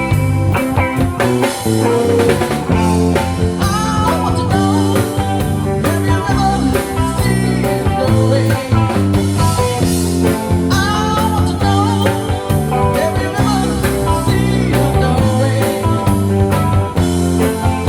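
Rock music with guitar, bass and a steady drum beat playing without a break.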